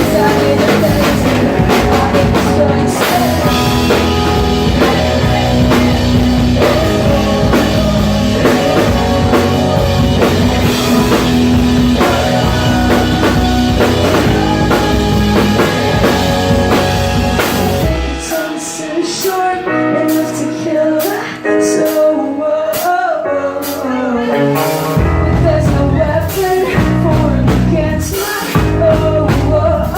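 Live rock band playing: electric guitars, bass and drum kit behind a singer. About two-thirds of the way through, the bass and low drums drop out, leaving a sparser stretch of guitar and voice. The full band comes back in near the end.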